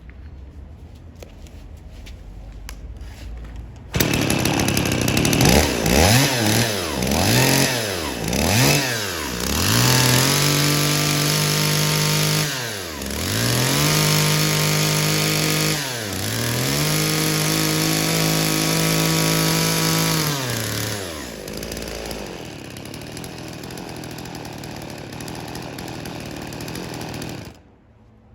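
Kyoritsu V395SP two-stroke engine chainsaw starting about four seconds in after a few light clicks, then revved with several quick blips and three long full-throttle runs, settling back to idle before it is switched off and stops abruptly near the end.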